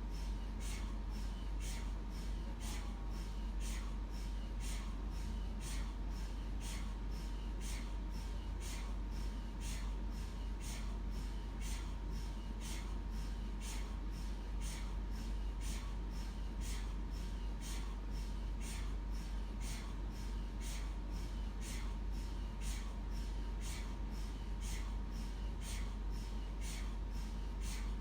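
MRI scanner running a scan sequence: a deep steady hum under rhythmic tapping about twice a second, with a faint steady tone above.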